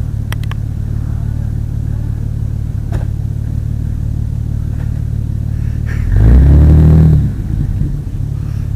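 Small-block 350 V8 in a 1995 Chevy S10 idling with a steady rumble. About six seconds in it is revved once, held for about a second, then drops back to idle.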